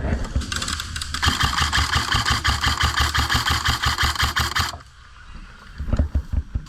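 Airsoft electric gun firing full-auto, a long rapid burst of fast even shots that cuts off suddenly. A few low thumps follow near the end.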